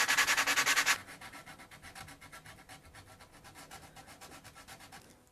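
Hand sanding a wooden chair rail with folded 120-grit sandpaper: quick, even back-and-forth rubbing strokes, loud for about the first second, then much fainter.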